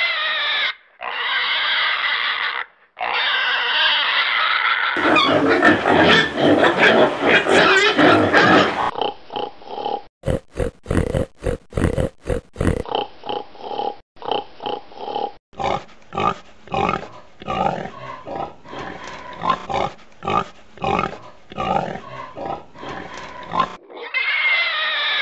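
Pigs squealing in high, wavering calls, then a noisy jumble of squeals and grunts. This gives way to long runs of short, rhythmic grunts, two or three a second.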